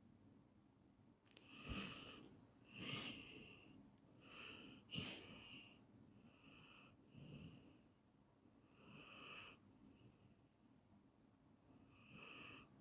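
A sleeping person snoring faintly: about eight short breath sounds at irregular intervals, with a sharp click about five seconds in.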